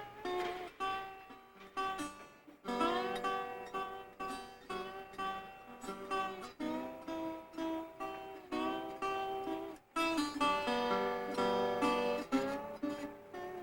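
Background music: plucked acoustic guitar playing a melody with strummed chords.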